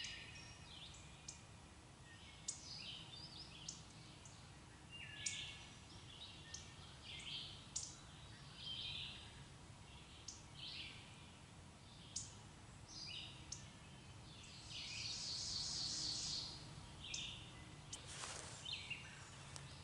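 Songbirds chirping and calling in spring woodland: scattered short chirps throughout, a longer dense trill about fifteen seconds in, and one brief sharp sound near the end, over a faint steady low background noise.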